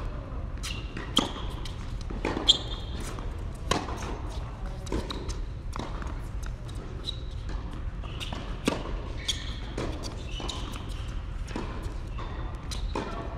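Tennis balls bouncing and being hit on an indoor hard court: scattered sharp knocks, the loudest about two and a half seconds in, with short high squeaks of court shoes, over a steady low hum.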